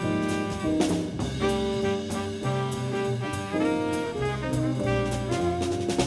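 Live small-group jazz: trumpet and saxophone playing the melody in long held notes, over a double bass line and a drum kit with regular cymbal strokes.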